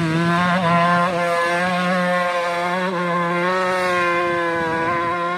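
Dirt bike engine held at steady high revs under load as the bike climbs a steep slope, the pitch wavering only slightly.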